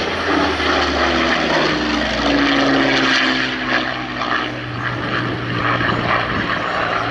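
Supermarine Spitfire Mk V flying past with its Rolls-Royce Merlin 45 V12 engine and propeller running loud. The engine note falls in pitch over the first few seconds as the aircraft passes.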